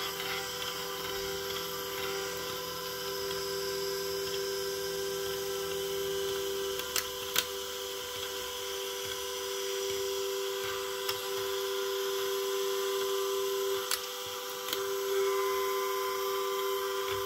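Sfena artificial horizon running on a 115 V, 400 Hz supply: its spinning gyro and supply give a steady electrical whine. A handful of sharp clicks come in the second half as the instrument is touched, and a low hum underneath fades out about a third of the way through.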